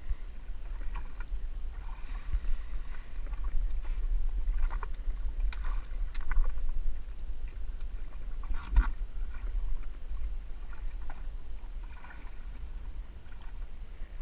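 Water slapping and splashing against the hull of a jet ski riding offshore swells, over a steady low rumble, with a few knocks, the loudest about nine seconds in.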